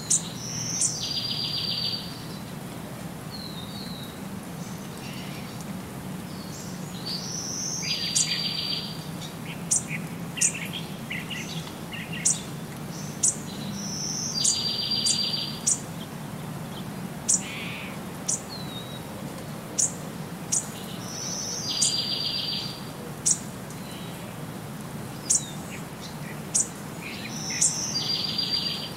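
Birds chirping in short, high notes, with a buzzy trill of about a second recurring about every seven seconds in the same sequence. A steady low hum runs underneath.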